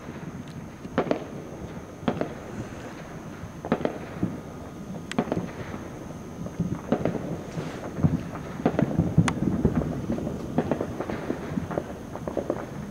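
Fireworks and firecrackers going off, with irregular sharp pops and bangs that thicken into rapid crackling about halfway through.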